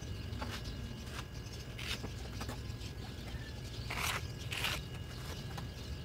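Plastic scraper drawn over wet concrete in short strokes, with several brief scrapes, the loudest two close together about four seconds in, over a steady low rumble.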